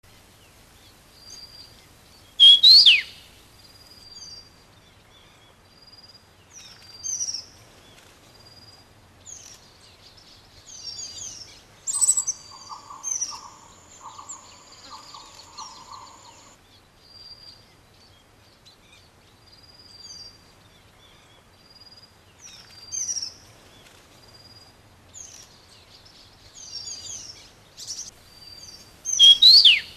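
Wild birds calling: short high chirps repeated throughout, with two loud downward-sweeping calls, one about two seconds in and one near the end.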